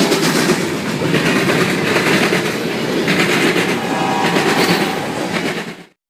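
Illinois Central train passing close by, wheels clattering over the rail joints in a steady, loud rumble. It cuts off suddenly near the end.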